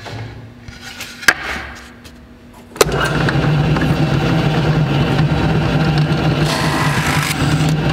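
A drill press runs, then from about three seconds in its Forstner bit bites into plywood with a sudden, loud, steady grinding. The bit is struggling and stalling in the wood because it is not tightened securely in the chuck.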